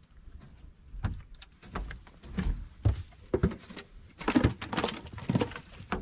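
A run of irregular knocks and thumps that grows louder from about a second in, with wind buffeting the microphone.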